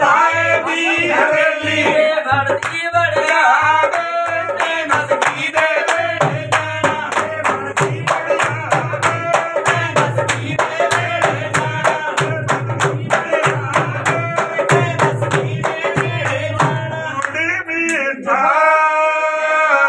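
Group singing a Punjabi folk wedding song in chorus to steady hand clapping and a drum beat. Near the end the drum stops and a new sung line begins.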